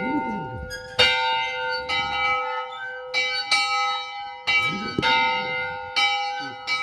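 Church bell rung by pulling its rope, struck about once a second at an uneven pace, each stroke ringing on over the next; very loud.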